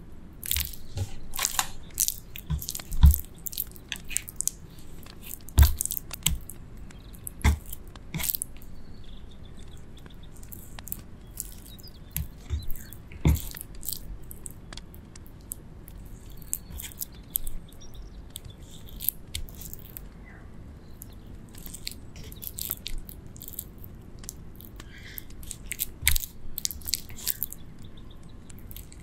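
Marinated raw chicken breast pieces squeezed and pushed onto a bamboo skewer by hand on a wooden cutting board: irregular close-up wet squelches and crackles, with a few low knocks in the first several seconds.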